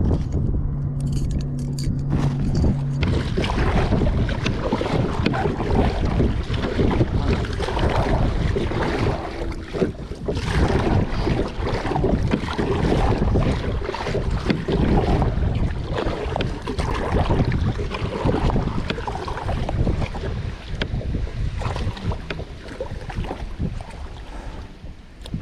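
Strong wind buffeting the microphone on a kayak out on rough, choppy water, with a low steady hum for the first few seconds.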